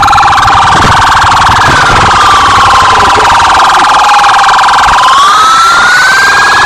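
Police siren wailing: a slow wail that falls over a few seconds and rises again about five seconds in, over a loud constant electronic tone.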